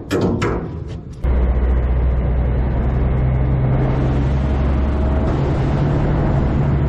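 About a second of percussive music, then a sudden cut to a charter fishing boat's engine running steadily underway, a loud low drone over a constant rushing noise.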